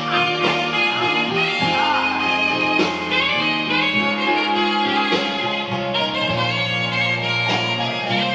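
Jazzy band music with a saxophone playing a solo over a steady bass line.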